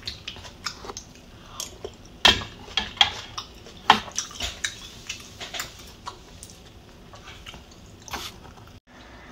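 Close-miked chewing and wet mouth sounds of someone eating beef pho noodles, with scattered sharp smacks and clicks. The loudest come a little over two seconds in and about four seconds in.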